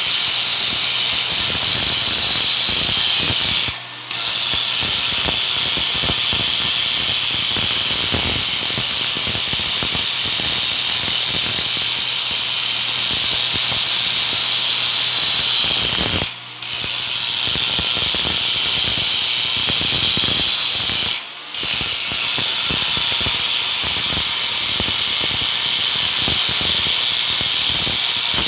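Stick-welding (SMAW) arc crackling and hissing steadily, a dense frying sound made of many small clicks. It cuts out briefly three times, about 4, 16 and 21 seconds in.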